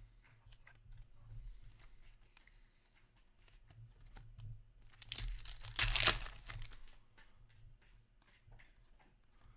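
A hockey trading-card pack's wrapper is torn open, with a loud ripping a little past the middle. Soft clicks and rustles of cards being handled run around it.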